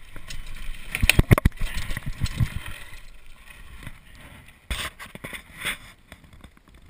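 Mountain bike ridden fast down a dirt singletrack: a low rumble with knocks and rattles from the bike. A cluster of sharp knocks comes about a second in, and the noise eases after about three seconds, with a couple more sharp knocks near the end.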